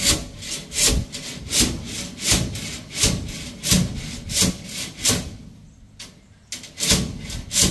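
Hand saw cutting through steel rebar, one hard back-and-forth stroke about every three-quarters of a second. The strokes stop briefly a little past the middle, then start again.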